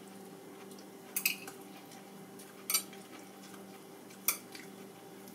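Chopsticks clicking against the bowls and the serving dish: three light clicks, about a second and a half apart, over a steady low hum.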